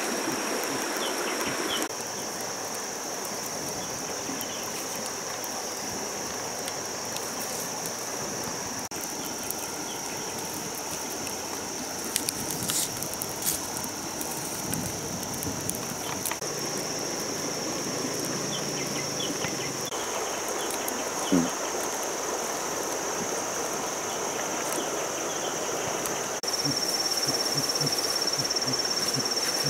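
Forest and riverside ambience: a steady high-pitched insect drone over the even rush of a stream, with a few faint clicks. The background shifts abruptly a few times in level.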